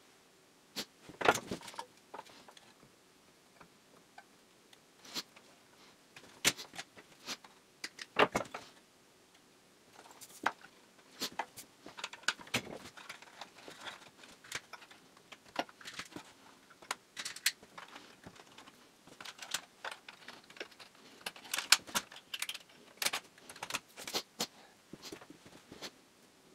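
A man sniffing through his nose again and again in short, irregular sniffs, like a sniffing rabbit, which he thinks may mean he is getting sick. Light clicks and rattles of wires and parts being handled come in between.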